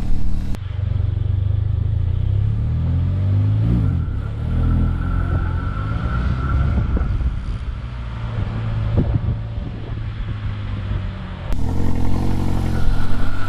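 Mercedes-AMG CLA45's turbocharged 2.0-litre four-cylinder engine running and being revved through its exhaust, the revs rising and falling, with a faint turbo hiss from the newly fitted K&N air filter that the exhaust largely drowns out. The sound changes abruptly about half a second in and again near the end.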